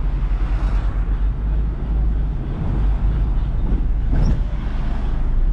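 Steady rumble and road noise of a moving vehicle, heard from inside it, with a brief sharp high sound about four seconds in.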